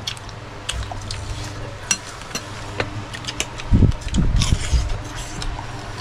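Eating and table sounds: scattered light clicks and clinks of spoons against bowls, then a short cluster of low thumps with a crisp crunch from a little under four seconds in, as a fresh cucumber is broken apart by hand.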